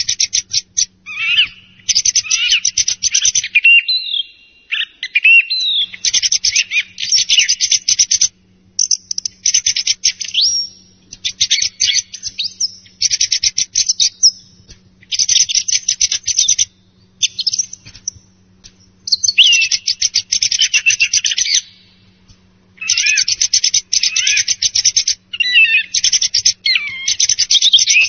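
Song thrush singing: bursts of rapid, sharp notes mixed with a few slurred whistles, each phrase a second or two long with short pauses between.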